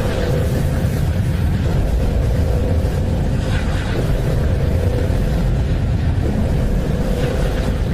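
Steady low rumbling drone of a 'sounds of space' recording, with a faint held tone and a few soft whooshing swells.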